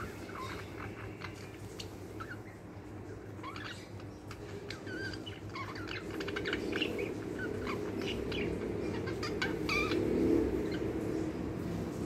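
Pair of budgerigars chattering with short chirps, squeaks and clicks, busiest in the second half. A steady low rumble underneath grows louder toward the end.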